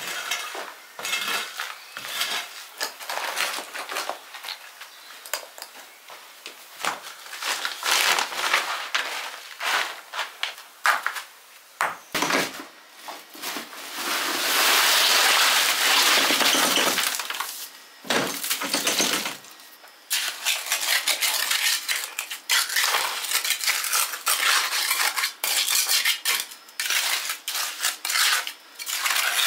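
Metal rake tines scraping and clinking over stony dirt. About halfway through, wet limecrete slides out of a tipped wheelbarrow into the hole for about three seconds, followed by the choppy scraping of a trowel working the mix.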